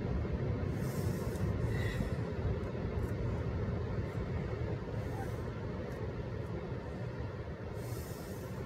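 Outdoor wind buffeting the microphone as a steady low rumble, with ocean surf behind it and brief hissing washes about a second in and near the end.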